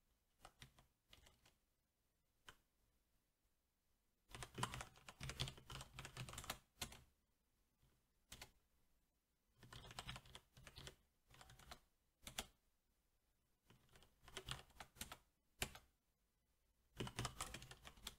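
Typing on a SteelSeries 6Gv2 mechanical keyboard with Cherry MX Black switches: quick runs of key clicks in about four bursts, with a few single keystrokes and short pauses between them.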